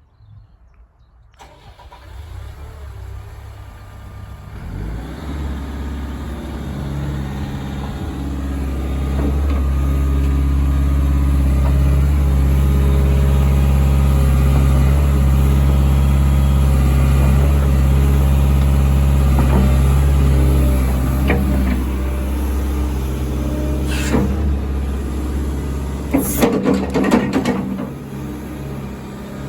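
Diesel engine of a Hyundai HX140L crawler excavator starting and running up to a steady, louder speed, then easing back down. A few sharp knocks come near the end.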